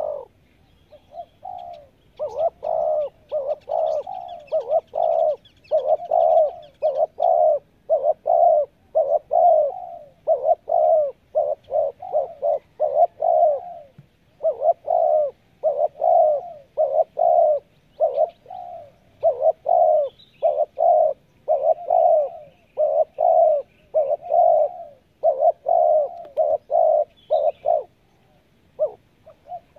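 Spotted dove cooing in a quick run of short coos, a few each second, with brief breaks near the middle and near the end. Faint high chirps of small birds sound above it now and then.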